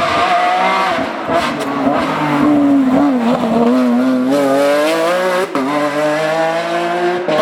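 Porsche 911 GT3 rally car's flat-six engine running hard, its revs climbing and dropping again and again through gear changes and braking, with a brief break about five and a half seconds in.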